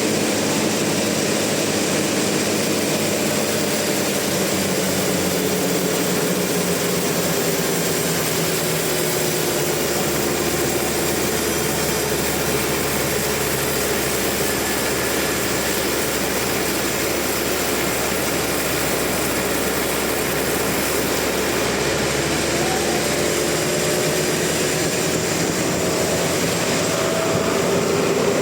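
Sawmill machinery running steadily, a dense mechanical hum and hiss whose engine tone slowly sinks and then climbs again near the end.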